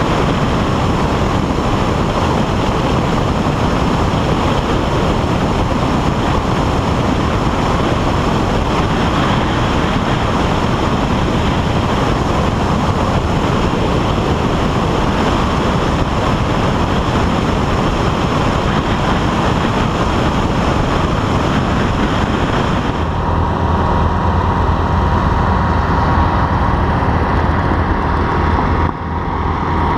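Wind rushing over a wing-mounted microphone, mixed with the drone of a Van's RV-12's Rotax four-cylinder engine in flight and on a low approach. About 23 seconds in, the sound changes abruptly to a steadier engine drone with a distinct hum: a B-25 bomber's radial engines heard from the ground as it moves along the taxiway.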